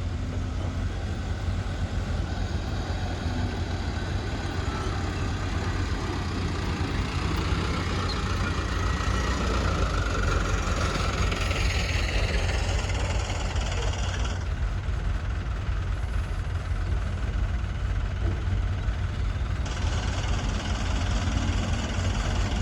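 Heavy construction machinery engine running steadily at a low idle-like hum, with a higher whine that swells and fades around the middle.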